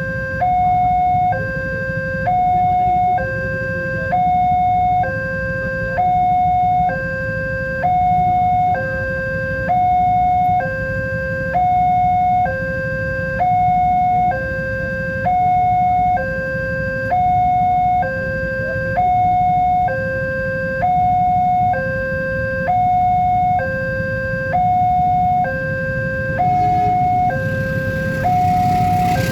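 Railway level-crossing warning alarm sounding its two-tone signal, switching between a lower and a higher tone about once a second, which warns that a train is approaching. A steady low rumble runs underneath.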